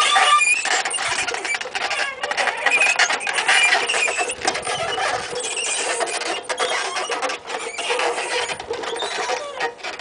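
Old, rusty tricycle creaking and squeaking as it is ridden, with clicking and rattling throughout; the squeak comes from rust built up over many years.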